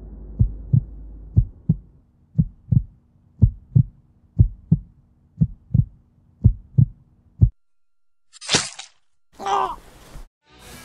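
Heartbeat sound effect: a low double thump about once a second, stopping about seven and a half seconds in. Near the end come two short, sharper sounds, the second falling in pitch.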